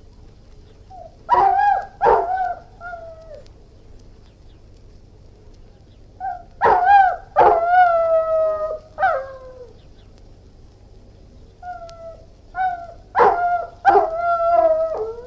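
Irish wolfhound barking and howling in three bouts. Each bout is a few sharp barks running into short, pitched howls that sag in pitch at the end.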